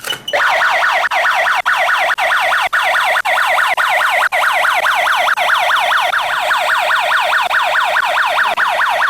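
Sound-and-light alarm annunciator of an asset anti-tear alarm system sounding a loud electronic siren, a fast warble of rapidly repeated pitch sweeps that starts a moment in and cuts off suddenly. It is the alarm set off when the anti-tear tag is torn off the laptop, relayed over the 433 MHz wireless units.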